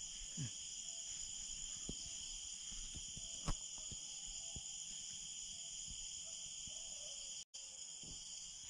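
Steady chorus of night insects, a continuous high-pitched trill, with a faint click about three and a half seconds in. It drops out for an instant near the end.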